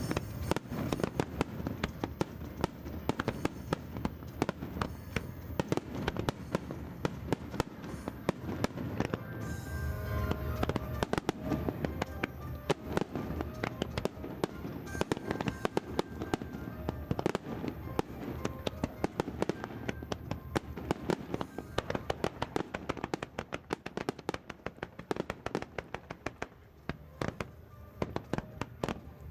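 Fireworks display: a dense, rapid barrage of aerial shell bursts, many bangs and crackles a second, thinning a little near the end.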